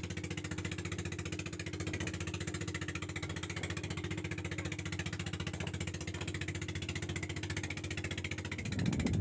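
A small fishing boat's engine running steadily with a fast, even pulse while the boat is under way. Near the end a louder rushing noise rises over it.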